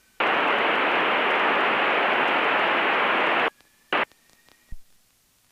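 Aircraft VHF radio hissing with static for about three seconds, starting and cutting off abruptly, as the squelch opens with no voice on the frequency; a short burst of static and a click follow.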